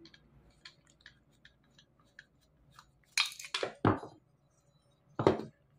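Screwdriver turning a self-tapping screw in a hole of an aluminium heatsink: faint scratchy clicks, then a louder crunching scrape about three seconds in and another short sharp one near the end. The screw is cutting the threads free in the hole so the LA4440 IC can later be screwed on without cracking.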